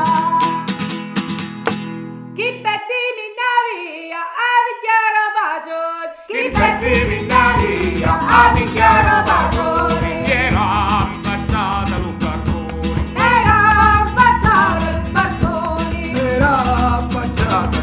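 Song with plucked acoustic guitar and singing. After about three seconds the guitar and low notes drop out, leaving the melodic line on its own. Near the middle a fuller accompaniment with strong bass and percussion comes in under it.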